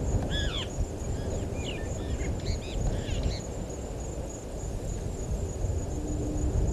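Wild birds calling at a waterhole: a quick run of short, arching calls in the first half, fading out about halfway through, over a steady low rumble of wind on the microphone.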